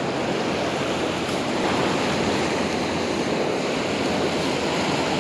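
Churning surf washing up the beach: a steady, even rush of breaking waves and foam.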